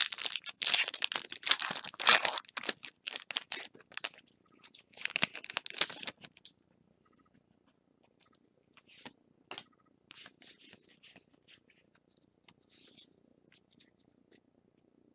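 Foil Pokémon booster pack wrapper being torn open and crinkled, in loud tearing rustles for about the first four seconds and again briefly around five seconds in. After that, quieter handling of the freshly opened stack of trading cards: soft clicks and faint rustles.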